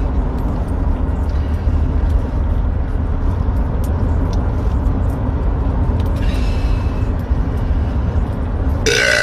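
Steady low rumble with no clear events, then a long, pitched burp starting near the end.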